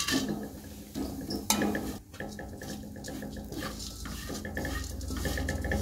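Grated coconut poured into a metal kadhai, then stirred with a slotted metal spoon that scrapes and clinks against the pan, with one sharp knock about a second and a half in.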